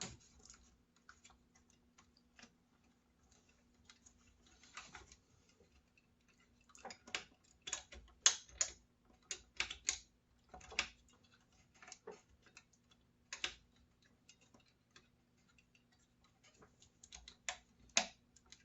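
Irregular clicks and light knocks of small plastic and metal router parts being handled and pressed into place in the plastic housing, sparse at first and busier from about seven seconds in.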